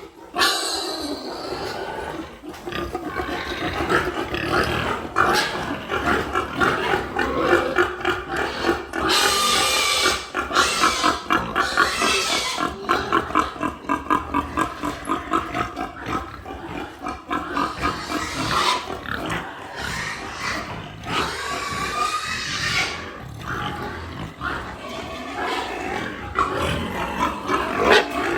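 Many pigs grunting together in rapid pulses, with louder high squeals rising and falling now and then.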